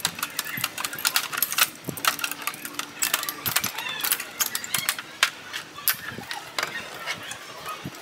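Clear mylar drum-head film crackling and crinkling, mixed with sharp metallic clicks from pliers on the steel hoop, as the film is worked around the rim.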